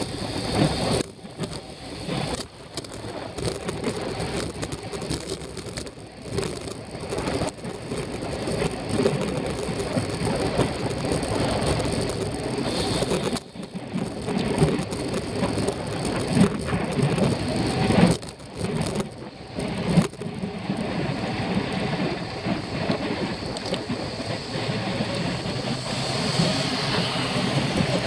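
Wind rushing over a bicycle-mounted camera's microphone while riding at racing speed, mixed with tyre noise on the road. The rushing rises and falls, with a few sudden brief drops.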